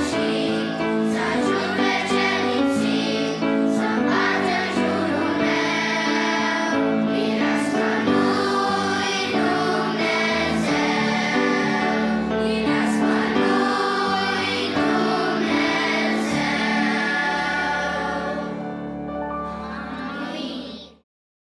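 A children's choir singing a Romanian Christian hymn in Romanian, with piano accompaniment. The sound eases off slightly near the end, then cuts off suddenly.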